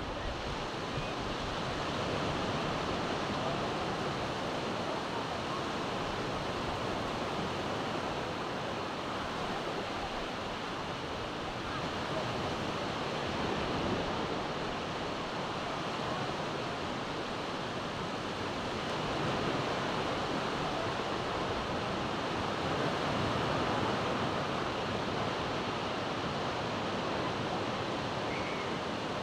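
Steady wash of surf from waves breaking along a sandy beach, mixed with wind, swelling a little now and then.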